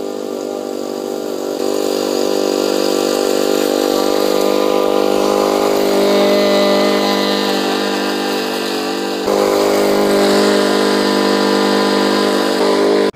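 Gas push lawn mower's small engine running at a steady pitch, growing louder as the mower comes toward the microphone, with a sudden step up in loudness about nine seconds in.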